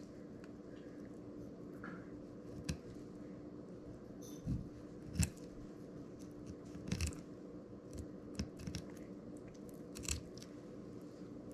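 Fillet knife cutting the rib bones out of a brown trout fillet on a plastic cutting board: a handful of faint crunches and clicks a second or two apart as the blade works through the small bones, over a faint steady hum.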